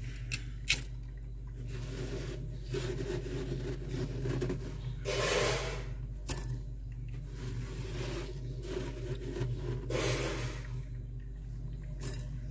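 Freezer frost being scraped up by hand and dropped into a stainless steel bowl: crunching, scraping strokes of the packed frost, with a few sharp clicks against the metal bowl, over a steady low hum.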